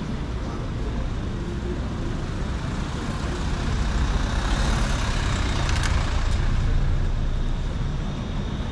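Street traffic, with the steady low drone of a heavy vehicle's engine close by and a brief high hiss about six seconds in.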